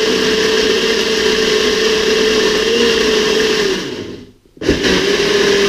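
Small personal mini blender running, its motor and blades blending a thick almond, lemon juice and water mixture with a steady whine. It stops for about half a second about four seconds in, then runs again.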